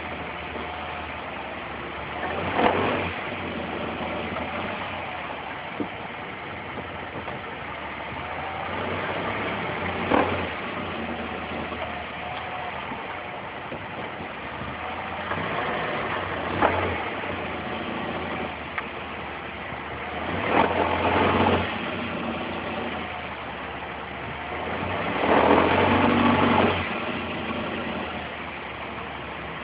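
2007 Nissan Altima engine idling with a rattling noise, revved briefly about five times, the last rev the longest.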